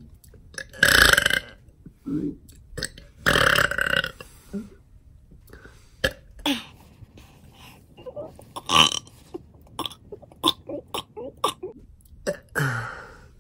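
One person burping over and over on purpose: two long, loud burps in the first four seconds, then a run of shorter burps, with another loud one about nine seconds in.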